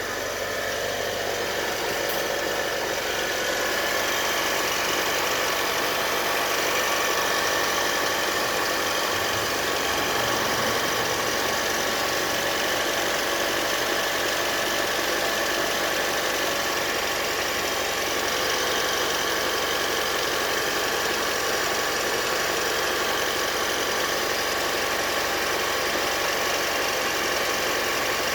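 Mitsubishi Pajero Mini turbo engine running at a steady idle with a continuous high squeal over it: the abnormal noise the owner hears after a cold start, which he says fades once the engine has run a while.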